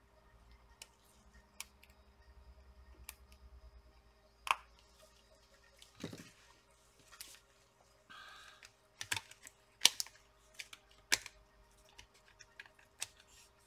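Light, scattered clicks and taps of laptop parts and tools being handled: tweezers put down, then a laptop battery pack laid into the plastic chassis, with the sharpest clicks about nine to eleven seconds in.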